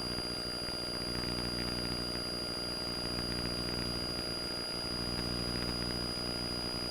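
Cessna 172's piston engine and propeller running steadily at full power on a touch-and-go takeoff, with a faint steady high whine over the drone.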